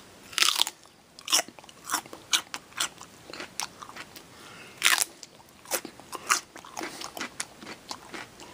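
Raw celery being bitten and chewed: a run of crisp, irregular crunches, the loudest about five seconds in.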